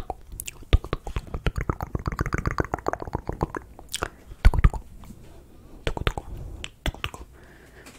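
Wet mouth sounds right at the microphone: quick lip and tongue clicks and pops, coming in a dense rapid run about two seconds in, a louder cluster past the middle, and scattered single clicks toward the end.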